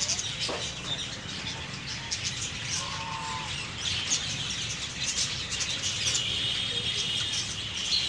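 A flock of budgerigars chirping and chattering without a break, the chatter growing denser about halfway through.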